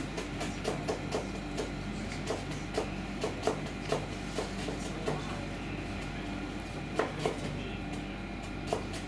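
Kitchen knife thinly slicing lemongrass on a cutting board: irregular sharp knocks, a couple a second with short pauses, over a steady low hum.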